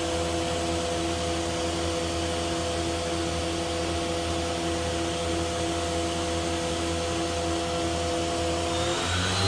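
Awea BM-1600 vertical machining center's 50-taper geared-head spindle running at a steady speed: a constant whine of several tones over a hum. Just before the end the tones change abruptly to a lower, stronger hum.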